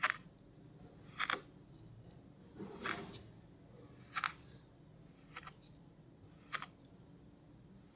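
Kinetic sand being sliced, about six crisp, crunchy cuts, each a little over a second apart.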